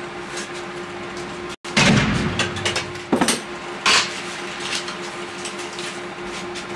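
Room noise with a steady hum, broken by a few knocks and rustling handling sounds, the loudest about two seconds in.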